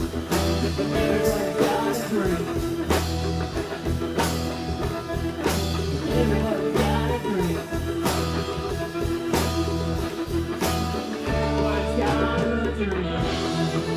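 Rock band music: a steady drum beat under bass and guitar, with gliding, bending notes over it.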